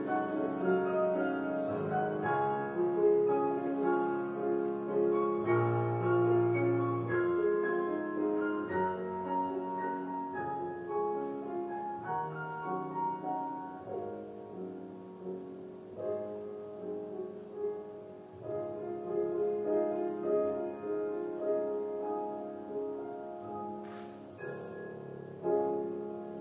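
Solo piano playing classical-style ballet class accompaniment for a barre exercise, with steady chords and melody, fading gradually over the last several seconds.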